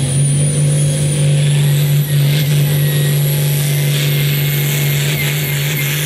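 Turbocharged diesel of a Pro Farm class pulling tractor running hard under load, a steady heavy drone with a high turbo whistle that climbs slowly in pitch.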